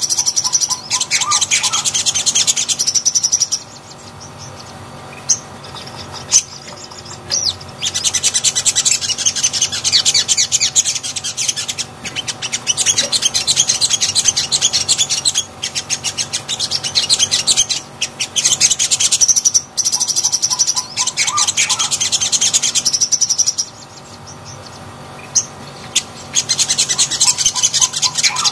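Sunbird (sogon) song: rapid, high twittering trills in bursts of a few seconds, with two longer pauses, one about four seconds in and one near the end.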